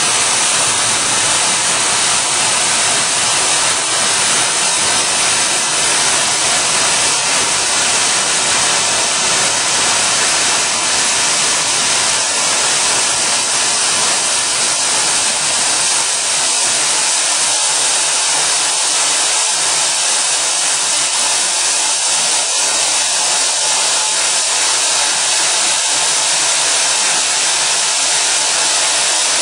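Friction stir welding of aluminium: a steady, loud hissing rush from the welding machine at work, its spinning tool travelling along the seam with a nozzle blowing at the tool. The deeper rumble underneath drops away a little past halfway.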